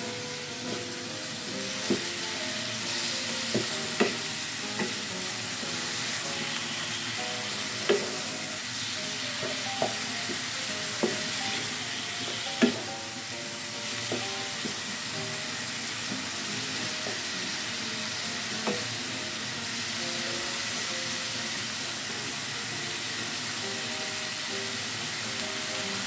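Squid and spice paste sizzling steadily in a wok, stirred with a wooden spatula that knocks against the pan now and then, the sharpest knock about halfway through.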